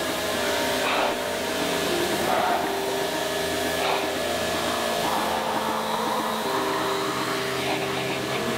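Pressure washer wand spraying a steady high-pressure jet of water onto a car's door and lower sill to blast off caked dirt, a continuous hiss with a steady hum beneath it.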